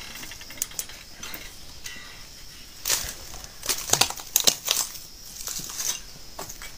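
Footsteps crunching over dry leaves, twigs and dead bamboo fronds, a run of irregular crackles that is loudest in a cluster a little past the middle.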